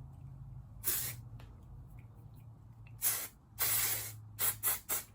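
Aerosol dry powder finishing spray hissing onto hair in about six separate bursts: one short spray about a second in, then a run of sprays near the end, the longest lasting about half a second.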